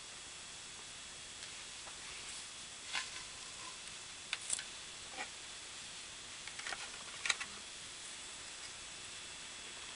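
A few light clicks and taps from hands handling the mirror's stand and a piece of cardboard, the sharpest a little past the middle, over a steady hiss with a faint high whine.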